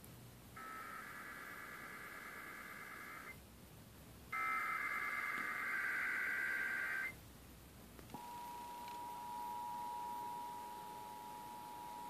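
Emergency Alert System Required Monthly Test on an FM broadcast: two SAME header data bursts, each about three seconds long with about a second between them. About eight seconds in, the steady two-tone attention signal (853 and 960 Hz) begins and holds.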